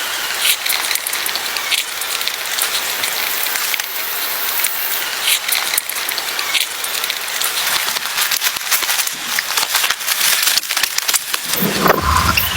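Steady rain pattering, an even hiss with many small ticks and taps.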